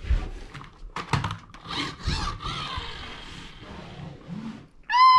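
Shiba Inu puppy scuffling with a plastic toy tuk-tuk on carpet: irregular knocks and rubbing as it paws and mouths the toy, then a short high puppy yip at the very end.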